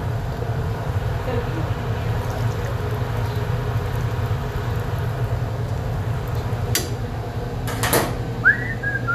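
Steady low hum of commercial kitchen equipment around a deep fryer, with metal tongs and fry baskets clinking a few times near the end.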